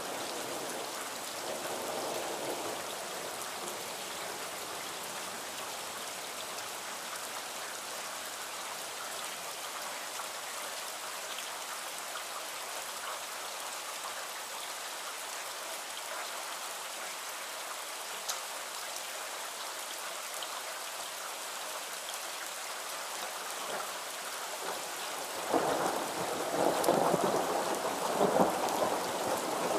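Steady rain hissing down, with the tail of a thunder rumble fading in the first few seconds. About 25 seconds in, a louder roll of thunder breaks in and rumbles on.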